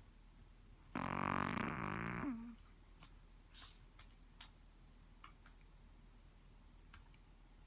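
Sleeping dog making a low, buzzy vocal sound during REM sleep. It lasts about a second and a half and ends in a short falling note, followed by a few faint clicks.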